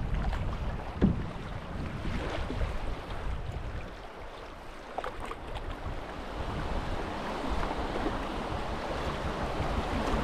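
River water rushing around a moving canoe, with wind buffeting the microphone and a couple of light knocks. The rushing grows louder toward the end.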